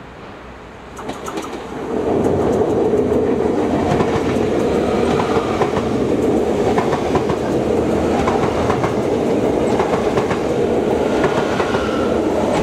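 NS double-deck electric passenger train passing close at speed. Its sound rises about a second in, then holds as a loud, steady rumble and rush of wheels on rail, with repeated clicks as the wheels cross the rail joints.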